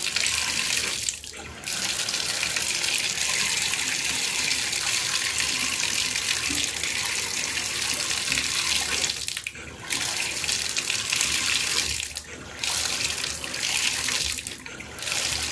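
Water pouring from a bathtub spout through a pressure-balancing tub/shower valve, a steady rush that drops off briefly a few times. No water-hammer knocking is heard: the banging has been cured by replacing the failed pressure-balancing cartridge.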